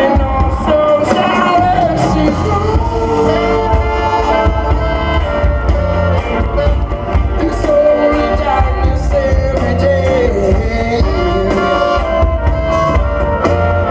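A live band playing a blues-rock song, with an electric guitar over bass and drums, recorded from the audience.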